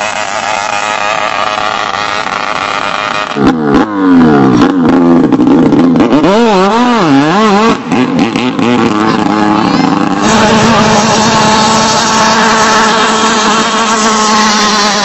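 Racing longtail boat engines running at high revs. In the middle the pitch swings up and down several times, and near the end it holds a steady high note, with abrupt changes in sound between passes.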